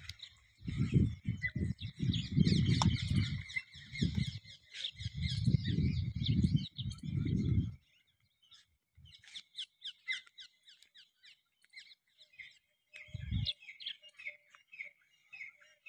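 A dromedary camel making a quick series of low, gurgling grunts for the first eight seconds, with one more grunt near the end. Small birds chirp throughout, most clearly once the camel falls quiet.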